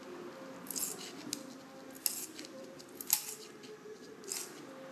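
Parrot-beak tile nipper nibbling tiny pieces off the edge of a ceramic tile: four sharp crunching snips, roughly a second apart, as the tile splinters and crumbles under the jaws.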